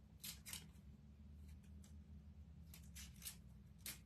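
Faint, irregular crisp ticks of thin kraft cardstock as fingers press the small cut-out bits out of a die-cut paper doily, over a low steady room hum.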